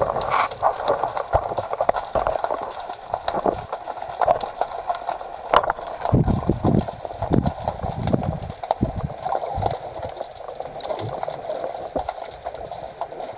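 Underwater sound picked up through a camera housing on a speargun: dense crackling clicks with water rushing and handling noise, stronger low rushes about six to eight seconds in.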